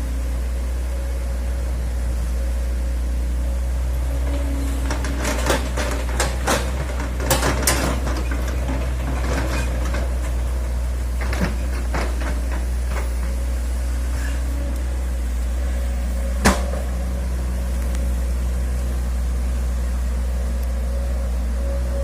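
Hitachi excavator's engine running steadily with a low hum, with bursts of knocking and clatter a few seconds in and again toward the middle, and one sharp knock about three-quarters through.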